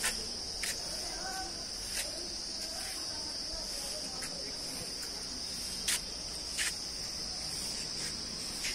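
Steady high-pitched chirring of insects, unbroken throughout, with a few faint clicks now and then.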